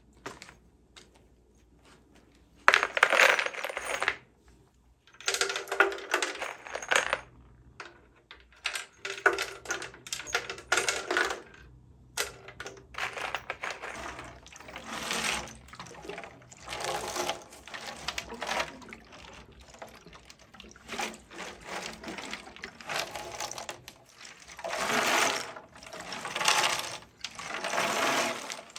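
Loose wood screws rattling and clinking inside a rusty motorcycle fuel tank filled with vinegar as the tank is shaken, with the liquid sloshing, to break up heavy rust. It comes in bursts of a second or two at first, then runs almost without a break from about halfway through.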